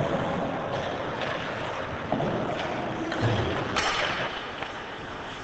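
Ice hockey play on an indoor rink: a steady hiss of skates on the ice and arena noise, with scattered clicks of sticks and puck and a brief, sharper scrape nearly four seconds in.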